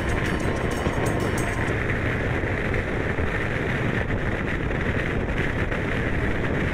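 Steady rush of wind over the microphone, mixed with the engine and tyre noise of a Honda Forza 750 scooter cruising on a highway.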